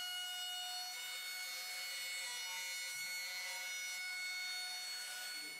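Handheld router with a flush-trim bit running steadily as it trims excess plywood flush along a table top's edge: a steady high whine that fades out near the end.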